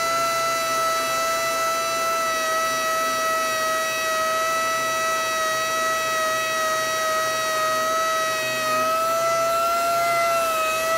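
Pneumatic DeWalt dual-action sander running with a steady high whine, its pitch wavering slightly and rising a little near the end as the pad works the steel. It is stripping the paint off hail dents on a pickup's cab roof before primer and filler go on.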